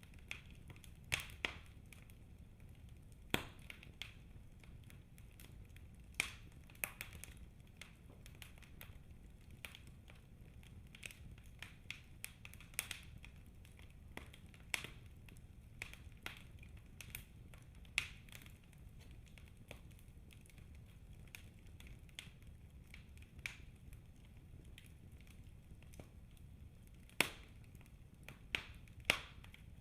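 Wood fire in a fireplace crackling: irregular sharp pops and snaps over a steady low rumble, with a few louder pops, the strongest near the end.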